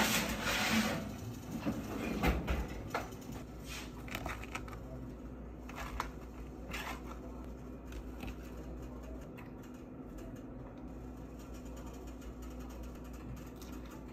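Metal kitchen tongs clicking and handling pieces of fried chicken and asparagus onto plastic plates: a rustle in the first second, then scattered light clicks and taps, thinning out after about seven seconds over a faint steady hum.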